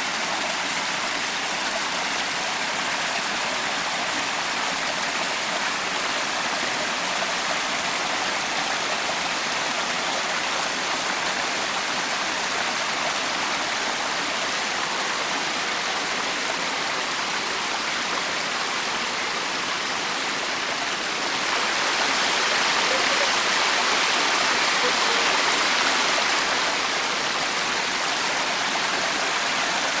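Water rushing down a rocky mountain stream and waterfall, a steady hiss that grows louder for a few seconds about two-thirds of the way through.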